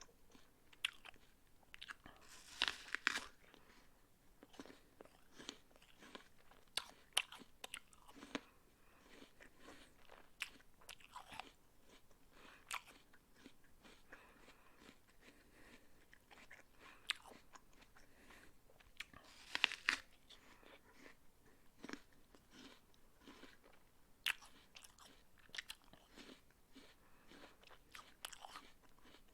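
A person biting into and chewing a raw apple, with crisp crunching and smaller crackles from the chewing. The loudest crunches come about three seconds in and again about twenty seconds in, likely fresh bites.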